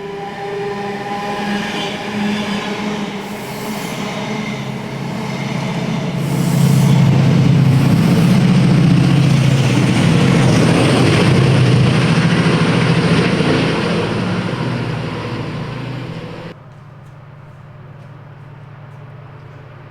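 Class 68 diesel locomotive hauling Mk3 coaches: the engine runs steadily, then the train grows louder and noisier for several seconds. The sound fades and then stops suddenly a few seconds before the end, leaving a quieter steady hum.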